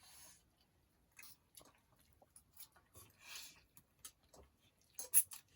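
Someone eating up close: quiet chewing with small clicks and a couple of short hissy sounds like slurps or breaths. A quick cluster of sharper clicks, the loudest sounds here, comes near the end.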